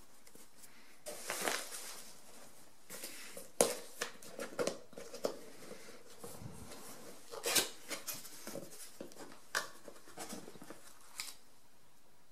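Cardboard product box opened and its contents handled by hand: irregular rustling and scraping of cardboard and paper with sharp taps and clicks.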